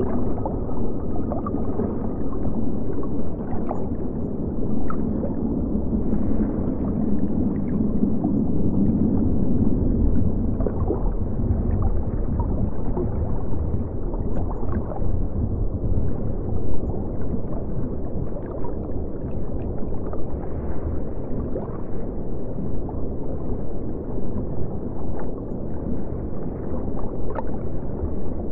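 Aquarium water sound: a steady, muffled rush of moving water with scattered faint ticks.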